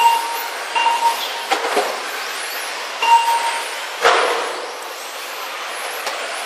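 Electric 1/10 RC touring cars racing, their motors whining up and down in pitch over a steady hiss of running cars. Short electronic beeps sound three times, and a sharp knock about four seconds in is the loudest moment.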